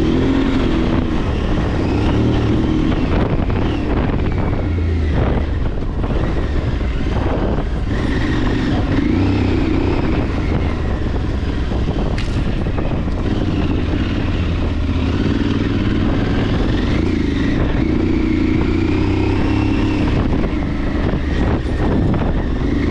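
Aprilia adventure motorcycle's engine running under way on a dirt trail, its pitch rising and falling as the throttle opens and closes, with wind noise over the microphone.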